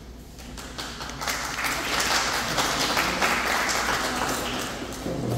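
Audience applauding. The clapping swells about a second in and tapers off near the end.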